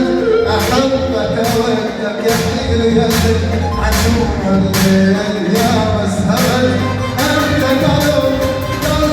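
Arabic wedding band music playing loudly: held melody notes over a strong bass line and a regular drum beat.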